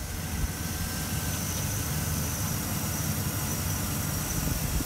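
2012 van's engine running steadily at idle, heard close with the hood up, with a faint high-pitched whine above the low engine sound.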